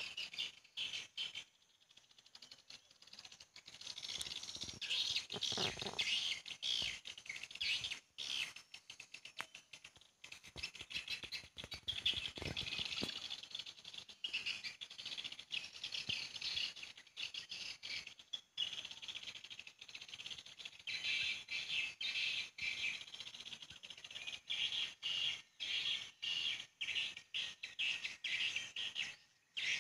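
Edible-nest swiftlets twittering in dense, rapid chirps, the sound of a swiftlet house's call recording and the birds drawn to it.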